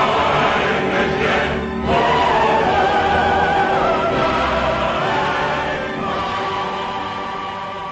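Choir singing with an orchestra in sustained, swelling chords, the music beginning to fade near the end.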